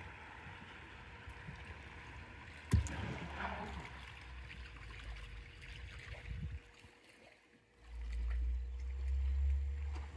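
Small wake ripples lapping against a wooden dock, with a single sharp knock about three seconds in and a loud low rumble over the last two seconds.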